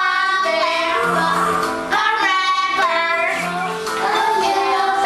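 A children's song: singing in a child's voice over instrumental backing music.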